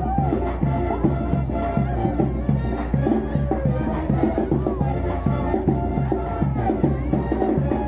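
Brass band music with horns playing over a steady, repeating bass beat.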